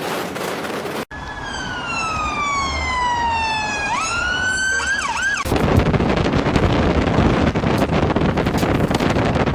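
An emergency vehicle's siren wails, its pitch falling slowly for about three seconds, then sweeping back up into a few quick yelps. About halfway through, the siren cuts out and a loud, steady rushing noise takes over.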